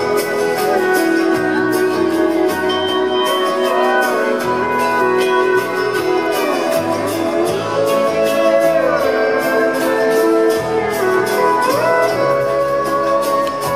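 Live band playing an instrumental break, with acoustic guitars, keyboard and steel pans over a steady drum beat and a lead line that slides between its notes; no singing.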